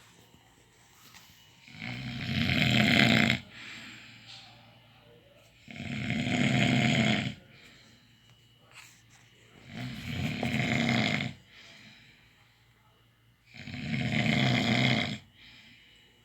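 Snoring: four long snores about four seconds apart, each lasting about a second and a half, with much quieter breathing in between.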